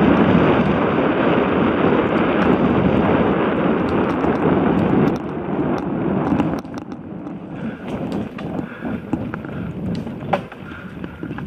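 Wind rushing over a helmet-mounted camera's microphone with the tyres of a 29er hardtail mountain bike rolling fast on a dirt singletrack. About five seconds in the wind noise drops sharply and goes quieter again a second later, leaving tyre noise and scattered clicks and knocks from the bike over the rough trail.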